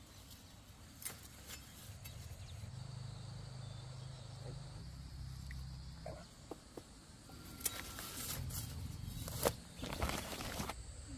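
Quiet countryside ambience: a faint steady insect drone over a low rumble, with scattered light taps and rustles.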